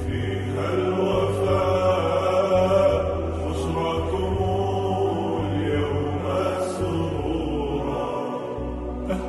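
Background music: chant-like vocals held over a steady low drone.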